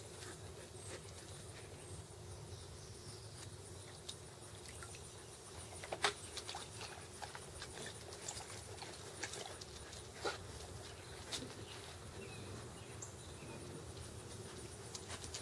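Samoyeds drinking at a water-filled plastic kiddie pool: scattered small splashes and clicks, irregular rather than rhythmic, the sharpest about six seconds in, over a faint steady hum.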